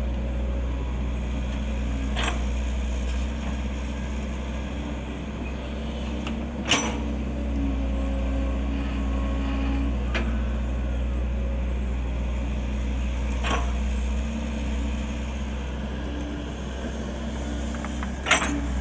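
Kobelco SK135SR excavator's diesel engine running steadily as it digs, with five sharp knocks spread through, the loudest about seven seconds in and just before the end.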